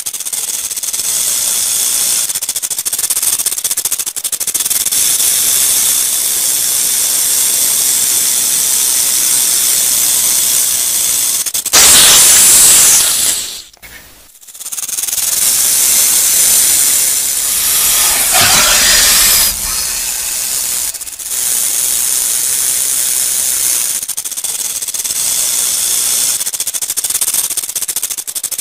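Rattlesnake shaking its tail rattle: a continuous dry, hissing buzz, the snake's warning signal. It surges loudest a little before the midpoint, nearly drops out for a moment just after, and swells again about two-thirds through.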